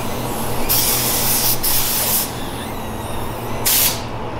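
Pneumatic paint spray gun spraying black paint into a truck's engine bay: a long hiss of compressed air and paint about a second in, then a short burst near the end.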